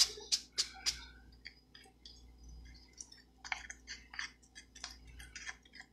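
Stir stick scraping and squelching through thick black chalk paste in a small jar, in short irregular strokes that come faster from about three and a half seconds in. The paste is a little chunky and is being worked toward a smooth, batter-like consistency.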